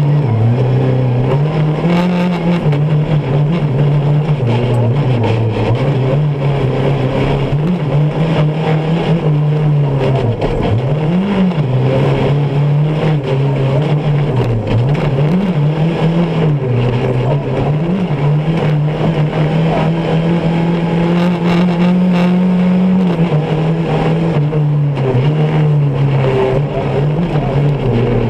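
Off-road rally buggy's engine heard from inside the cockpit at race pace, running loud throughout. Its pitch dips and climbs again several times in the middle, as with gear changes and throttle lifts, then holds steady and higher for several seconds, over steady noise from the dirt track.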